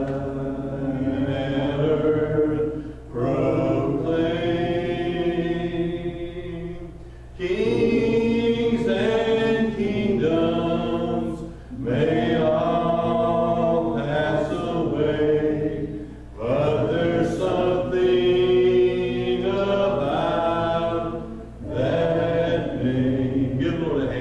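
Voices singing a slow, hymn-like song in phrases of about four seconds with short breaks between, over a steady low hum.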